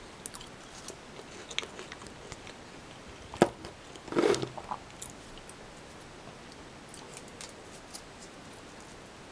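Eating from a polystyrene takeaway box: a plastic fork clicking and scraping against the box and chips, with soft chewing. A sharper knock about three and a half seconds in, then a short rustle, as the camera is set down on the table.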